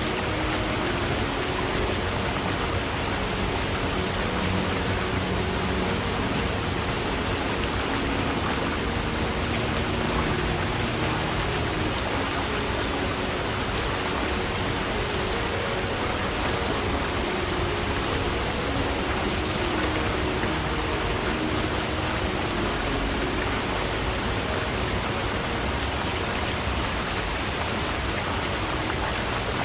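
Forest stream flowing, a steady, even rushing of water.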